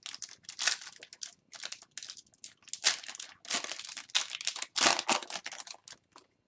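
Crinkling and rustling of a hockey card pack's wrapper being handled and torn open: a run of irregular crinkles, loudest about three and five seconds in.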